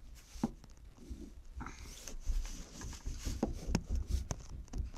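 Scattered clicks, scrapes and knocks from a hand tool being worked against the casing of an iPod to pry or cut it open, with handling rumble.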